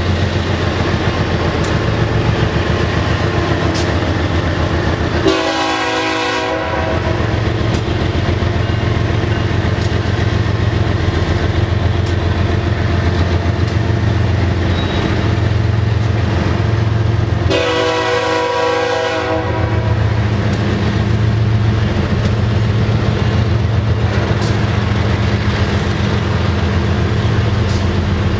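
A train's locomotive horn sounds two blasts of about a second and a half, some twelve seconds apart, with a third starting at the very end. Under the blasts runs the train's steady rumble, with wheels clicking over the rail joints.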